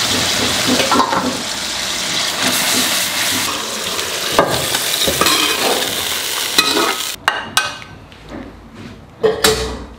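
Braising sauce sizzling and bubbling in a wok of fish and peppers with the lid off, with a metal spatula scraping the wok. The sizzling stops about seven seconds in, leaving a few clinks and scrapes of the spatula against the bowl.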